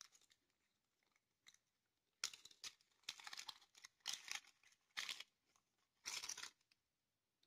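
Small plastic zip-lock bag crinkling as it is handled and opened to tip out tiny flower embellishments. The bag gives five short rustles, starting about two seconds in.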